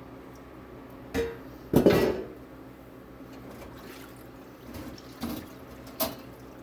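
A few short knocks and clatters of hard objects being handled and set down, the loudest about two seconds in.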